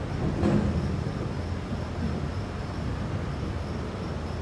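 Steady low background rumble with a brief louder noise about half a second in.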